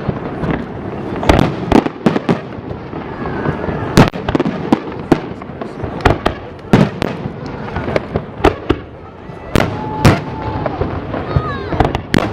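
Fireworks display: aerial shells bursting in irregular loud bangs, about ten in a dozen seconds, with crackling and rumble between them.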